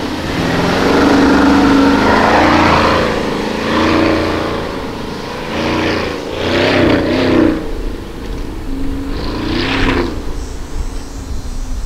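Porsche Cayenne Turbo's twin-turbo V8 revving up and falling back several times as the SUV slides through a dirt slalom, with bursts of hiss from the tyres spraying loose sand and dirt.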